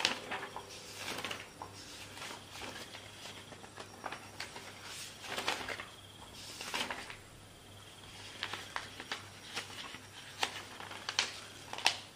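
Pen scratching on notebook paper and sheets of paper being handled and shuffled: irregular short scratches, rustles and light taps, with a few sharper taps, the loudest near the end.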